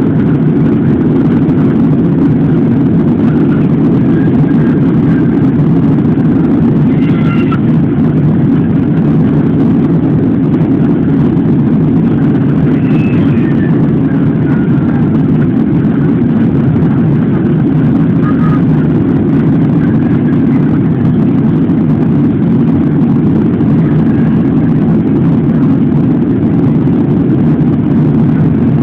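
Steady cabin roar inside an Airbus A340-600 airliner in flight: engine and airflow noise heard from a passenger seat, loud and unbroken, during the descent.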